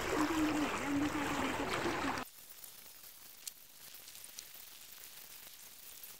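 Lake water lapping on a rocky shore, with a wavering low hum over it, cutting off abruptly about two seconds in to a faint background with a couple of small clicks.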